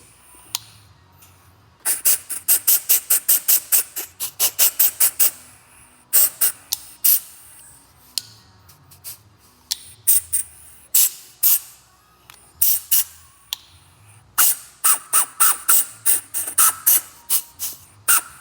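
Rebuilt Fuller air-shift knob on compressed air being flicked back and forth, each shift letting out a short sharp puff of hissing air. The puffs come in quick runs of several a second, with short pauses between runs. The valve is working freely after being cleaned of gummy residue.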